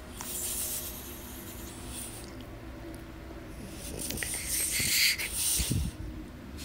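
French bulldog snoring: two long, noisy snoring breaths, the second one, about four seconds in, louder than the first.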